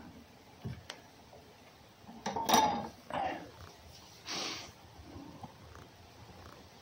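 A few short scuffing and knocking noises with long quiet gaps between them; the loudest comes about two and a half seconds in.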